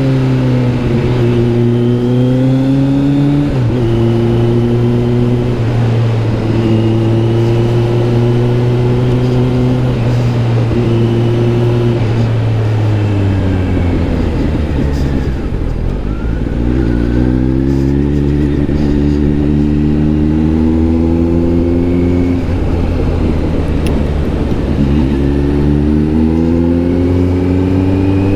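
Kawasaki Z900 SE's inline-four through an SC-Project S1 exhaust, being ridden. The engine note holds steady for several seconds, falls away about halfway through as the bike slows, then climbs in pitch in rising pulls broken by a drop, as on a gear change.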